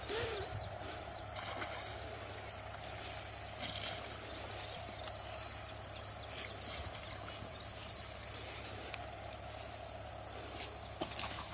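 Insects buzzing steadily in a continuous chorus, with a few faint clicks scattered through it.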